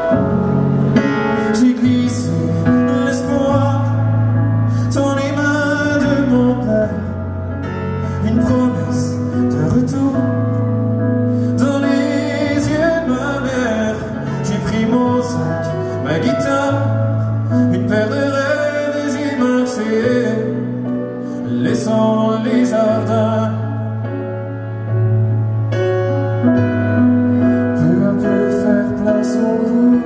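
Live instrumental passage of a pop ballad: piano over sustained low bass notes, with a wordless vocal line at times.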